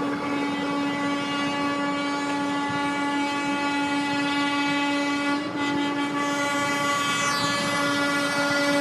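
A vehicle horn held in one long, steady blast over background traffic noise.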